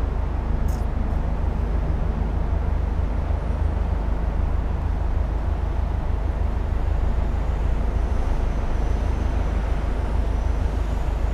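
Steady low rumble of a car idling while stopped in traffic, heard from inside the cabin.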